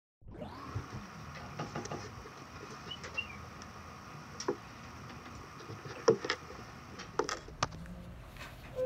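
Quiet classroom room tone with scattered light clicks and taps from a pencil and hands on a desk, a few of them sharper knocks in the second half.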